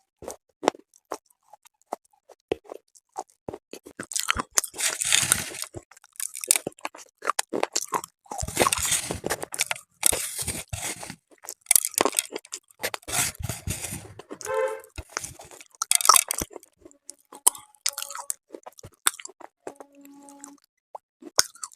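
Close-miked biting and chewing of something hard and brittle: sharp crunches in dense runs, with single clicks and crackles between them.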